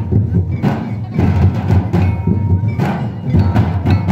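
Santal dance drumming: large double-headed barrel drums beaten in a steady, loud rhythm.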